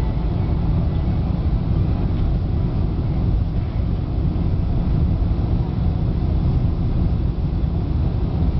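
Steady low rumble inside the cabin of a Boeing 747-400 on final approach, heard over the wing with the flaps extended: the Rolls-Royce RB211 engines and the airflow over the airframe.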